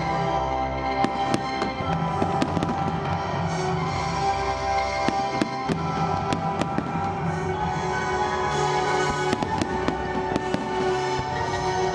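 Aerial firework shells bursting in a rapid, irregular series of sharp bangs over the music of a pyromusical show's soundtrack.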